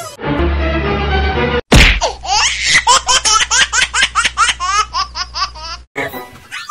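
High-pitched child-like laughter: a fast run of rising 'ha' sounds, about four or five a second, lasting about four seconds and cutting off suddenly. It follows a short steady pitched sound over a low hum.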